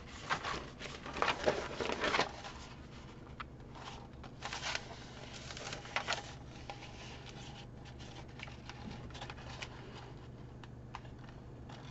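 Paper backing being peeled off adhesive craft vinyl: quick crinkling and rustling for the first couple of seconds, then a few scattered crackles and ticks.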